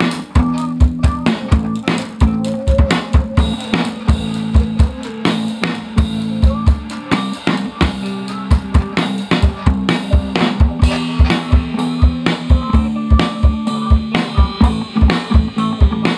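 Full band jam: an acoustic drum kit plays a busy, steady groove of kick, snare and cymbals over electric guitar and held low notes.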